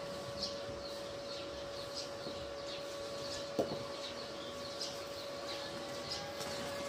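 Small birds chirping repeatedly in short high calls over a steady hum, with one sharp click a little past halfway.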